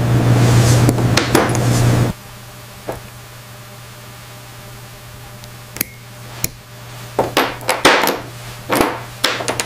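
Small metallic clicks and taps of jewellery pliers and tweezers working the wire loop and findings of a pearl earring. Several sharp clicks come close together in the last few seconds, with a brief light ping about six seconds in. A steady low hum runs under the first two seconds, then stops.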